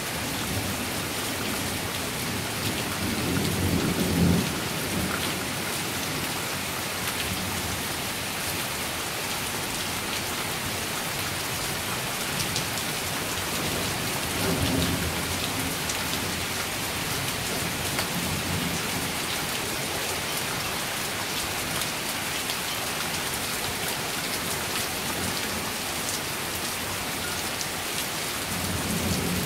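Heavy, steady rain with rolls of thunder: the loudest about four seconds in, a softer one around fifteen seconds, and another beginning near the end.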